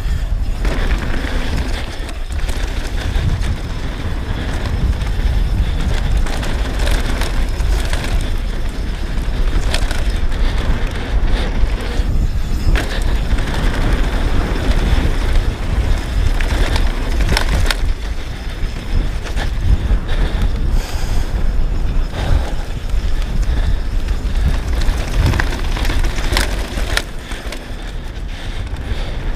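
Wind buffeting an action camera on a downhill mountain bike at speed, over the running noise of knobby tyres on a dirt trail and the bike's drivetrain and frame rattling. Occasional sharp knocks and clatters come from bumps, drops and landings.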